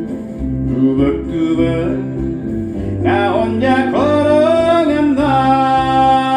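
Acoustic guitar accompaniment under a melody line from a harmonica-and-guitar song performance. The melody bends through several notes and settles into a long held note about five seconds in.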